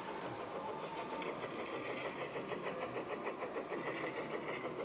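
G-scale model steam tank locomotive running along the track: a steady mechanical running sound with a fast, even pulsing.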